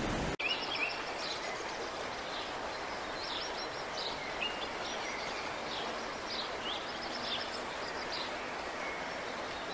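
Steady rush of muddy floodwater running over rocks and debris, with many short, high bird chirps over it.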